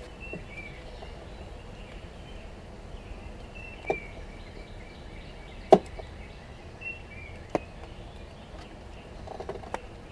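A few sharp knocks and clicks from a gloved hand working a tool against the wooden lid of a bee package box, the loudest a little past halfway. Birds chirp faintly.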